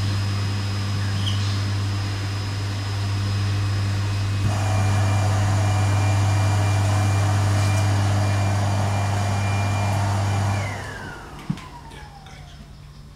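Screen-printing press's vacuum-bed motor running with a steady low hum and a high whine; about four and a half seconds in it grows louder and rougher. Near eleven seconds it is switched off and the whine falls in pitch as it spins down, followed by a single click.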